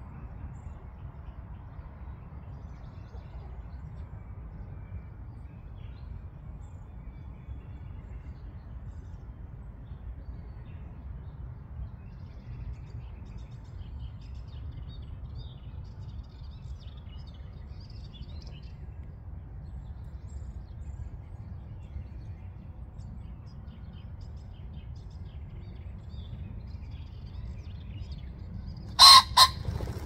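Male common pheasant crowing near the end: two loud, harsh notes about half a second apart. Before that there is a steady low rumble with faint high chirps now and then.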